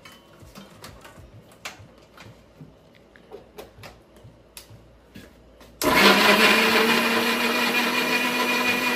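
A few light clicks and knocks as the mixer grinder is handled, then about six seconds in the mixer grinder switches on and runs loud and steady, blending tomatoes in its stainless steel jar.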